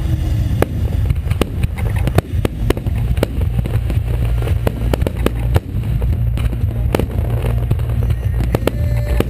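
Aerial fireworks shells bursting overhead: many sharp bangs and crackles, several a second at uneven intervals, over a continuous low rumble.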